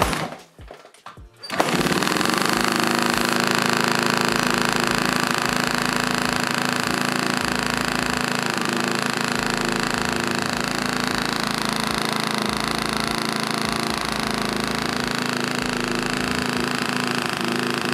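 Honda CRF450 single-cylinder four-stroke engine catching after a few knocks about two seconds in, then running steadily at idle.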